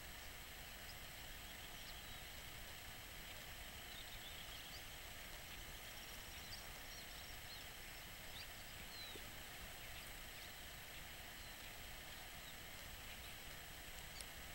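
Faint, scattered short chirps and whistles of small black birds over a steady hiss.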